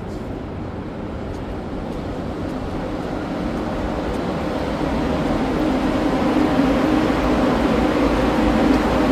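Aria Express cable-hauled people-mover tram pulling into the station behind glass platform doors, its steady running hum growing louder as it arrives.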